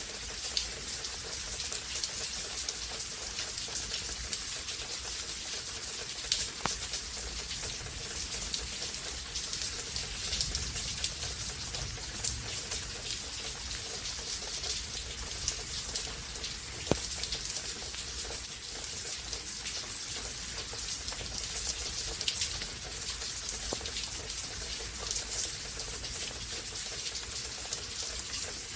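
Steady rainfall, with a constant hiss and many individual drops ticking sharply on surfaces close by.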